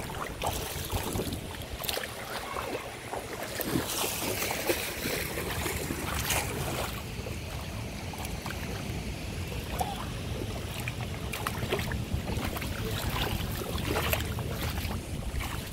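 Wind rumbling on the microphone over the wash of shallow water at a sandy pool edge, with a louder spell of watery hiss and splashes about four to seven seconds in.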